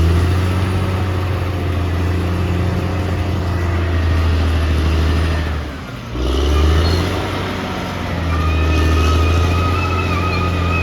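Caterpillar D6R XL bulldozer's diesel engine running under load, a low steady drone that dips briefly about halfway through. A high, thin whine joins it for the last few seconds.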